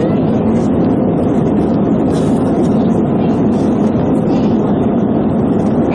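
Steady roar of an Airbus A320's CFM56 jet engines and airflow, heard from inside the passenger cabin, with a faint murmur of voices.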